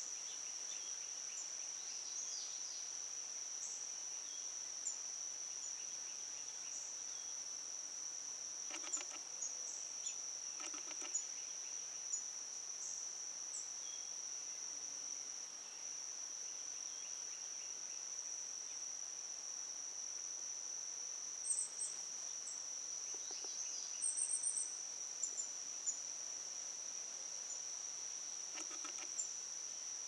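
Steady high-pitched drone of insects in the garden, with brief scattered chirps from small birds at a seed feeder and a few soft taps.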